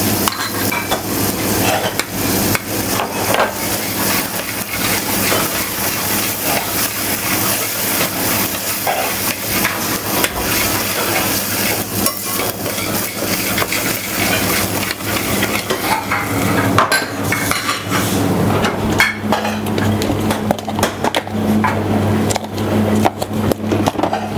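Metal spoon stirring rock-samphire risotto in a stainless steel saucepan, with many quick clinks and scrapes against the pan over a steady sizzle. A steady low hum joins about two-thirds of the way through.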